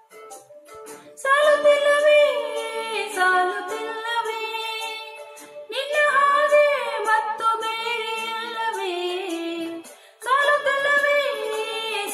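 A woman sings into a handheld karaoke microphone over a soft instrumental backing. Her voice comes in about a second in and sings three long phrases of held, bending notes with short breaks between them.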